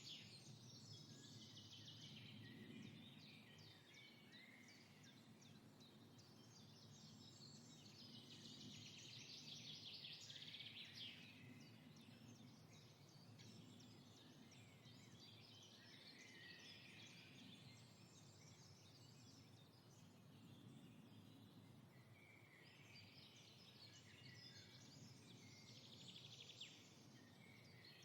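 Faint birdsong from several birds, coming in bouts of fast chirping every few seconds, over a low, steady background noise.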